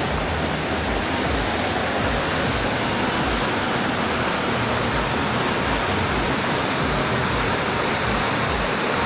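Steady rushing of flowing water, an even hiss with some low rumble underneath.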